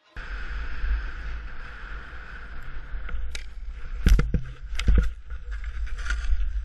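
Wind buffeting an action camera's microphone while a snowboard slides down a ski slope, with a steady hiss of snow under the board. Several sharp knocks come in the middle, the camera and board being jolted.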